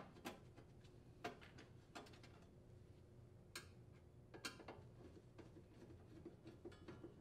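Faint, irregularly spaced clicks and taps of a Phillips screwdriver working screws out of a sheet-metal access cover, over a low room hum.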